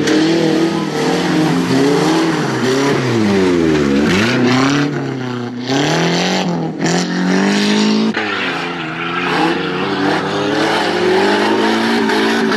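Off-road race buggy engine revving hard, its pitch climbing and falling with throttle and gear changes, with a deep drop and recovery in revs about four seconds in. The sound jumps abruptly twice, at changes of shot.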